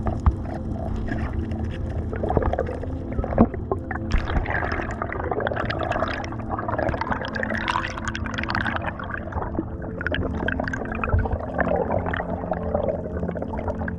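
Water gurgling and sloshing around the microphone, with scattered small clicks and pops.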